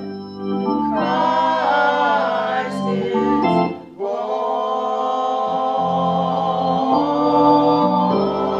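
Choir singing in slow, sustained chords with organ accompaniment, breaking off briefly just before halfway and then holding a long chord.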